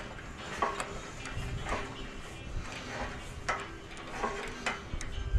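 Irregular sharp metallic clicks close to the microphone, roughly one every half second to second, from the basketball hoop's height-adjustment hardware on the pole being handled.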